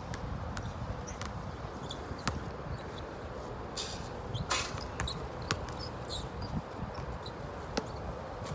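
Basketball on an outdoor court: scattered ball bounces and short sneaker squeaks over a steady low rumble, with two louder scuffing bursts about four seconds in.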